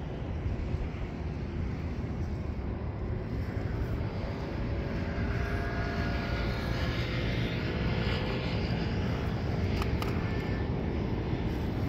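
Traxxas TRX-4M 1/18-scale rock crawler's small electric motor and gears whining as it climbs over rocks. The whine sets in about four seconds in, over a steady low rumble.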